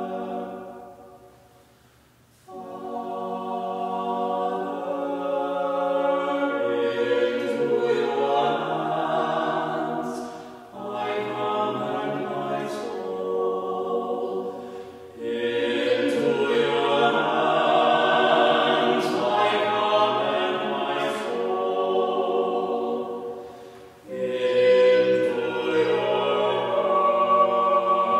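Small four-voice vocal ensemble (soprano, mezzo-soprano, tenor, bass) singing in four-part harmony, unaccompanied, in sustained phrases. There is a brief pause about two seconds in, and short breaks between later phrases.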